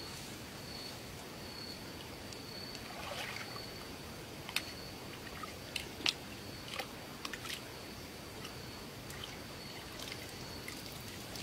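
Shallow water splashing and sloshing at the bank as a hooked fish is pulled in by hand, with a few sharp clicks and snaps around the middle. A faint high steady tone comes and goes underneath.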